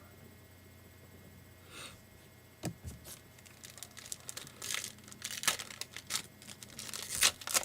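Panini Prizm trading-card pack wrapper crinkling and being torn open: a run of sharp crackles that starts about two and a half seconds in and grows busier towards the end.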